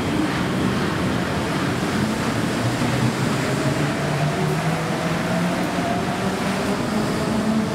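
A Kitakyushu Monorail train, a rubber-tyred straddle-beam monorail, running on its elevated guideway as it pulls away from the station. A steady running noise carries faint motor tones that rise slowly in pitch through the middle.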